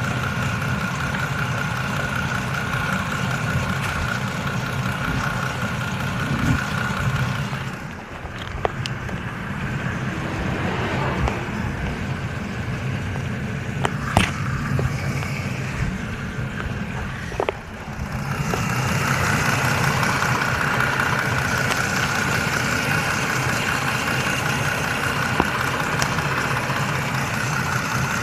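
2020 Chrysler Pacifica's 3.6-litre V6 idling steadily while warming up after a radiator replacement, with a steady high whir over the engine hum. About eight seconds in, the sound turns muffled for roughly ten seconds, with a couple of sharp clicks, then comes back clear.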